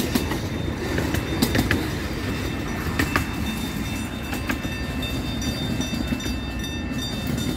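Miniature railroad passenger cars rolling past on the track: a steady low rumble of wheels on rail with irregular sharp clicks, growing slightly quieter as the last car moves away.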